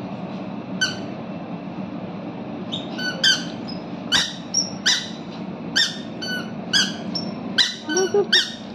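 A toddler's squeaky shoes squeaking with her steps: about a dozen short, high squeaks, starting about a second in and coming roughly every half second to second. A low steady hum sits underneath.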